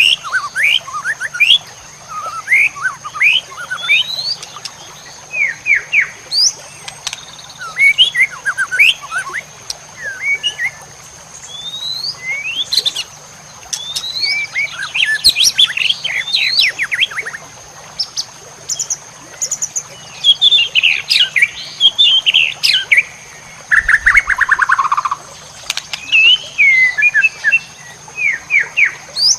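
White-rumped shama (murai batu) singing a varied song of quick rising whistles and rapid trills in short phrases separated by brief pauses. About three-quarters of the way through, one longer trill slides downward.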